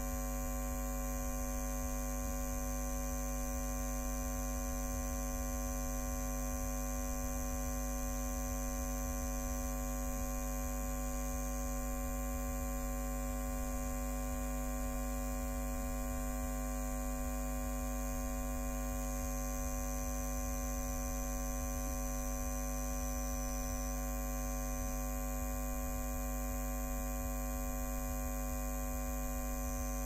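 Steady electrical mains hum and buzz of high-voltage power equipment: a constant low drone with many steady overtones, unchanging throughout.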